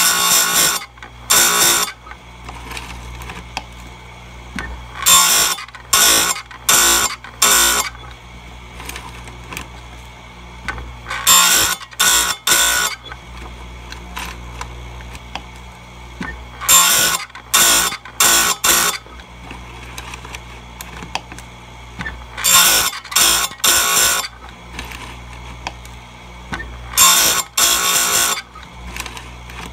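Power Fist bench-mounted chainsaw chain grinder: the motor hums steadily while the wheel is brought down onto a cutter in two or three short grinding passes, with a new cluster about every five to six seconds as the chain is moved on tooth by tooth. These are light touch-up passes, sharpening a dull chisel-cutter chain.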